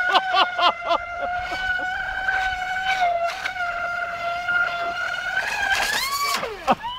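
Lehner 1535 brushless electric motor of an F1-E radio-controlled racing boat running at speed, a steady high whine. About six seconds in the pitch rises, then falls away sharply near the end.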